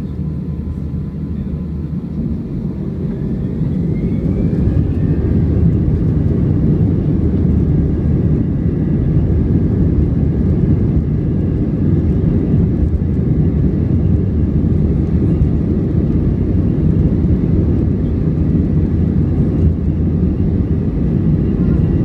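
Airbus A321's CFM56 jet engines heard inside the cabin, spooling up for takeoff: a whine rises about three seconds in as the rumble grows louder, then both hold steady at high power.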